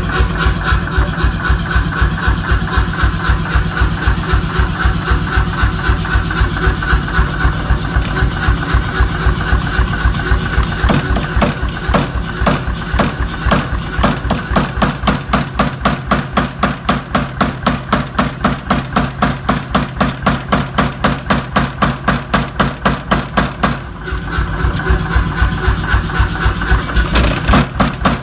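Mechanical power hammer pounding an iPhone on its anvil: a rapid, steady run of heavy blows, several a second, over the hum of the hammer's running motor. The blows soften for a few seconds near the end, then pick up hard again.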